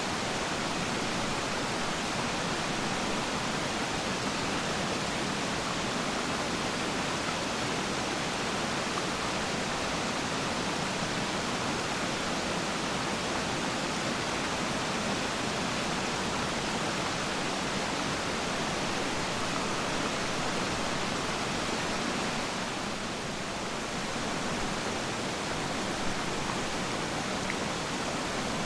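Waterfall's steady, even rush of falling and churning water, with a slight dip in level about 23 seconds in.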